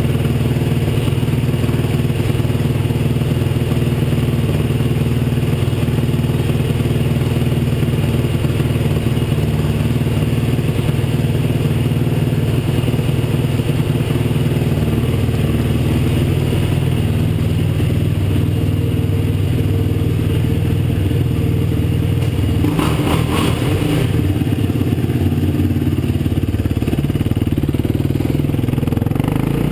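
Yamaha YFZ450 quad's single-cylinder four-stroke engine idling steadily, with a short clattering burst about 23 seconds in. Near the end the engine note changes as the quad pulls away.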